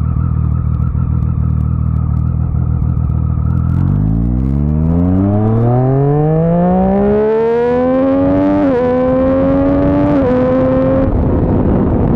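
Motorcycle engine running steadily at low revs, then accelerating with its pitch climbing for about five seconds. Two quick upshifts come near the end of the climb, and it then settles into steady cruising.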